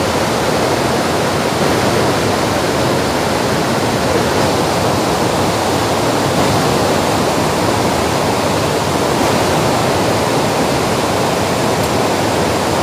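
Vazhachal waterfall in spate, brown floodwater rushing over rocks in a strong flow: a loud, steady noise of white water.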